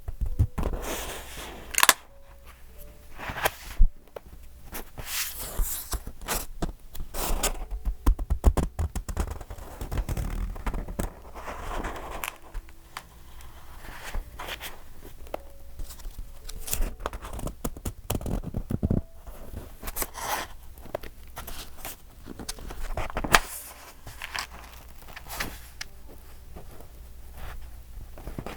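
Paper pages of a thick, decorated A5 journal being turned one after another: irregular rustling and crinkling swishes with soft thumps as the pages fall over.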